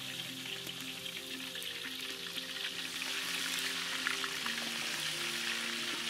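Quail pieces frying in hot oil in a pot: a steady crackling sizzle that grows louder about halfway through.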